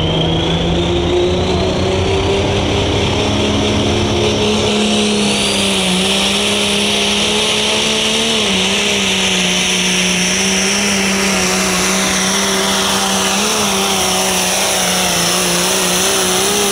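Limited pro stock pulling tractor's turbocharged diesel engine running flat out under load through a pull. The note is loud and steady, with a high whine climbing over the first few seconds.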